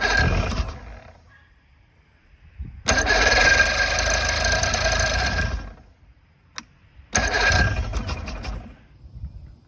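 Chrysler 90 hp two-stroke outboard turned over on its electric starter with the choke on, cranking in three bursts (a short one, a longer one of nearly three seconds, then another short one) without catching.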